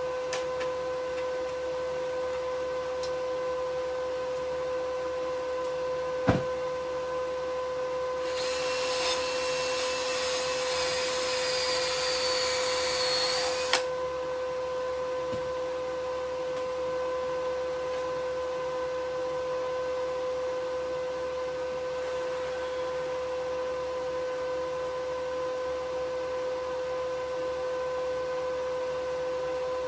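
Aluminium TIG welding: about eight seconds in, the welding arc strikes and runs with a loud buzzing hiss for about five seconds, then cuts off sharply with a click. A steady high hum continues throughout, with a single knock shortly before the arc starts.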